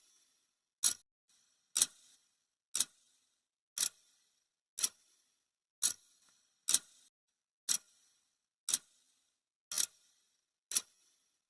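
Clock ticking sound effect marking seconds on a countdown timer: sharp, evenly spaced ticks, about one a second.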